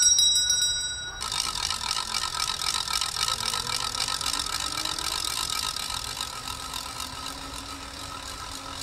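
A bell ringing steadily, which cuts off about a second in, followed by a hand-swung ratchet rattle clattering fast and without a break, fading a little toward the end.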